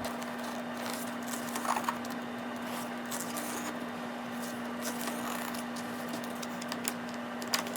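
Light rustles and small taps of an album photobook's pages being turned and handled, over a steady low hum.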